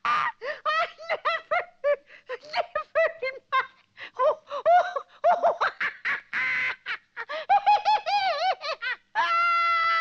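A cartoon owl laughing itself silly: a long, rapid string of short, pitched laugh bursts that rise and fall, ending in one long held squeal near the end.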